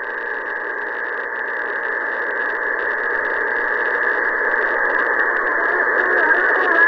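Japanese 27 MHz AM citizens-band receiver on channel 8 opening up to hiss and static, with steady whistling tones. Faint, garbled distant voices rise through the noise in the second half. These are stations calling in over a sporadic-E skip opening.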